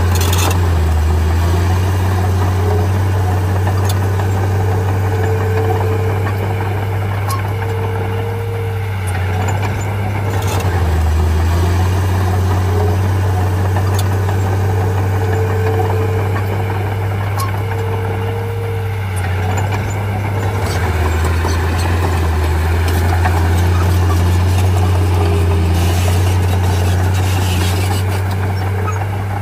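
Small Komatsu bulldozer's diesel engine running steadily as it works, its note dipping briefly about every ten seconds, with a higher whine that comes and goes and a few short clanks.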